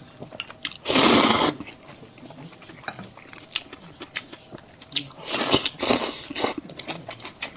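A person slurping hot noodle soup loudly: one short slurp about a second in and a longer one around five seconds in, with wet chewing and small mouth clicks in between.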